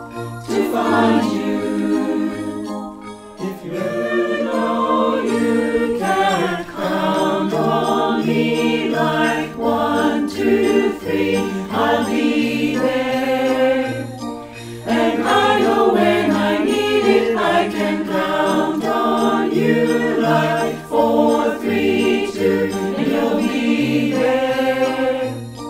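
A mixed choir of men's and women's voices singing a song in harmony over a steady low bass line.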